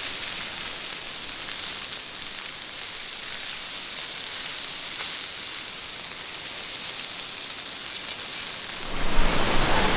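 Food sizzling in a frying pan: a steady hiss with faint crackles. About nine seconds in, a louder steady background with a high drone takes over.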